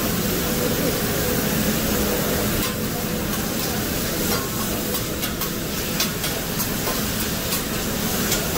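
Fried rice sizzling on a hot teppanyaki griddle, with a metal spatula scraping and clicking against the steel flat-top; the clicks come thickest in the middle of the stretch.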